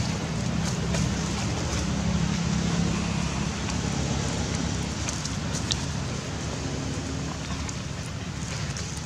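Steady low outdoor rumble with scattered light crackles of dry leaves as macaques move and sit on leaf litter.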